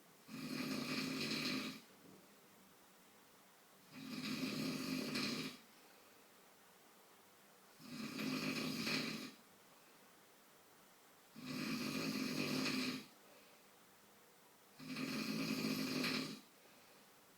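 A man snoring: five snores, each lasting about a second and a half, spaced about three and a half seconds apart, with quiet in between.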